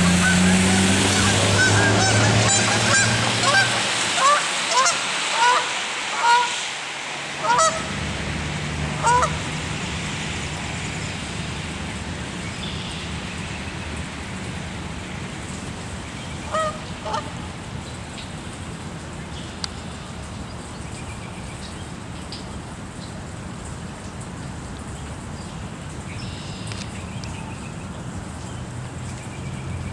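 Geese honking: a quick series of calls over the first nine seconds or so, then two or three more about halfway through, over a steady hiss of rain. A low engine hum fades out in the first few seconds.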